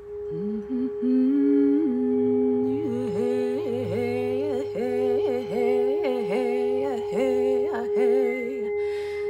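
Brass singing bowl sustained at one steady ringing tone by a wooden striker rubbed around its rim. Over it, a woman sings a wordless, gliding melody that starts under a second in and stops near the end.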